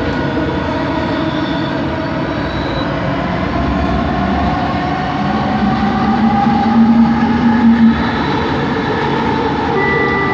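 Bombardier Innovia ART 200 metro train running, heard from inside the car: the linear induction motors give a steady whine of several tones over the running noise, one tone rising slowly in pitch, with a louder low hum about halfway through. This motor noise is what the uploader calls weird.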